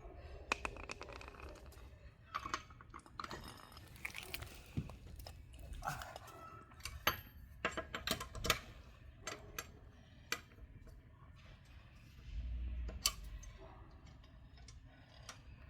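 Irregular metallic clicks, clinks and scuffs of lug nuts and a lug wrench being handled during a tire change, with a brief low rumble about twelve seconds in.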